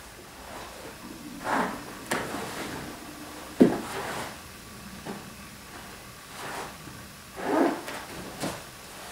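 A karateka's uniform and feet moving through kata techniques: several short swishes and rustles, with one sharp thud of a foot on the floor about three and a half seconds in.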